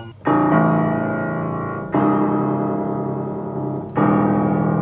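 Upright piano notes struck together three times, about two seconds apart, each left to ring and fade, played to check whether the strings just retuned are now in tune.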